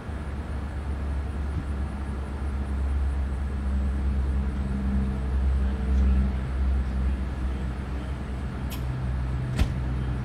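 Steady low rumble of outdoor background noise with a faint hum, and a sharp click near the end.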